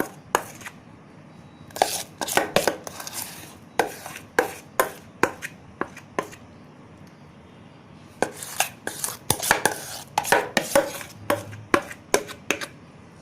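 A spoon scraping and tapping against the sides of a bowl as thick eggless chocolate cake batter is transferred into a greased microwave bowl: irregular sharp taps and short scrapes, in two busy spells.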